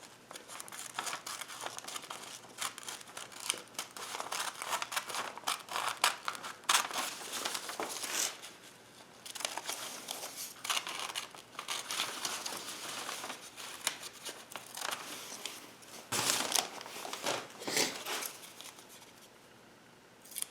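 Old newspaper rustling and crinkling in irregular handfuls as it is handled and cut up, with many short crisp snips and rips.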